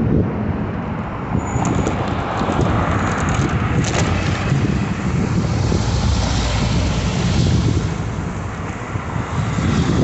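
Road traffic passing alongside, with steady wind noise on the microphone from riding an electric bicycle. A few light clicks come between about two and four seconds in.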